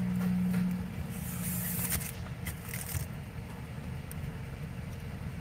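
Steady low hum of a car idling, heard inside the cabin. About a second and a half in comes a brief rustle, followed by a few light clicks from handling things in the car.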